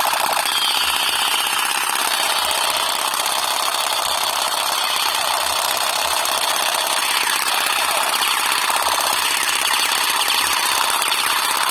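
Electric toy pistol firing: a loud, steady, very rapid mechanical rattle held without a break.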